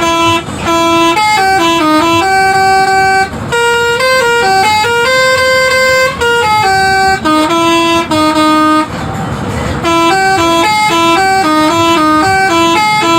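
Telolet multi-tone bus air horn playing a fast stepped melody, note after note with hardly a break. A short noisy break comes about nine seconds in.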